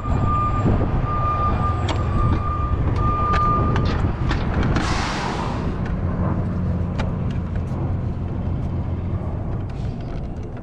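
Forklift travel alarm beeping: a steady single-pitched tone pulsing on and off, stopping about four seconds in. A short hiss follows about a second later, over a steady low rumble.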